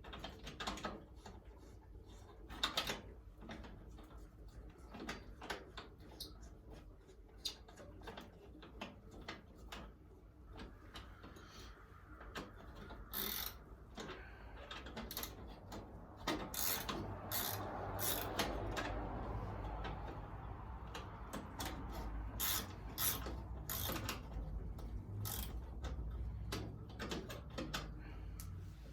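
Hand tools at work on a teardown: irregular metallic clicks and ratcheting from a socket wrench, with a steadier rubbing, scraping noise joining about halfway through.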